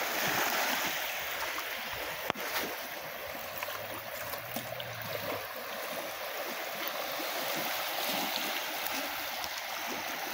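Small waves lapping and washing onto a sandy shore: a steady rush of water, with one sharp click about two seconds in.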